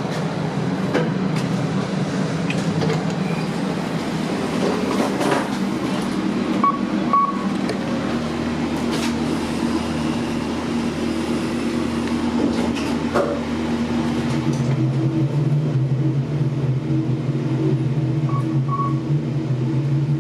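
Kone MonoSpace lift running, a steady travel hum that deepens and strengthens about two-thirds of the way through, with a short high electronic double beep twice, about 7 seconds in and near the end.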